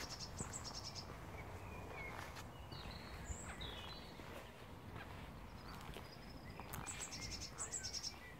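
Faint outdoor birdsong: a songbird sings a quick run of high, repeated chirps near the start and again near the end, with a few other bird calls in between, over a low steady background rumble.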